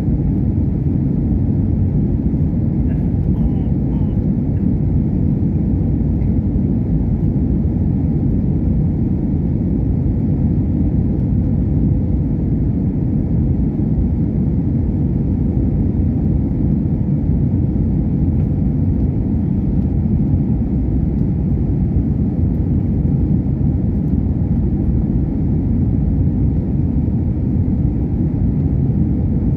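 Steady low rumble inside an airliner cabin in flight: engine and airflow noise during the descent toward landing, even in level with no distinct events.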